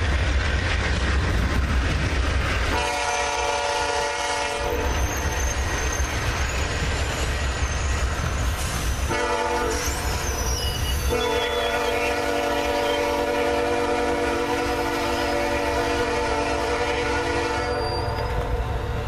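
Amtrak Superliner passenger cars rolling past with a steady low rumble. A diesel locomotive horn sounds from the head of the train: a short blast about three seconds in, then a long one from about eleven seconds until shortly before the end.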